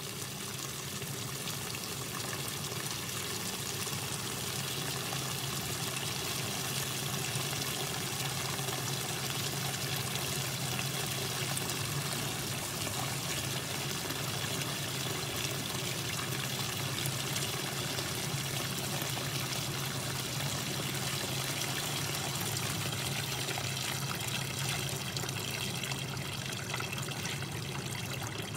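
A steady stream of liquid pouring and trickling over a low steady hum: window washer fluid draining out of an engine that was filled with it in place of motor oil.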